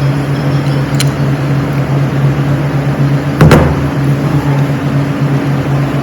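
Steady low machine hum, with a light click about a second in and a louder sharp knock about three and a half seconds in, metal parts handled during the compressor teardown.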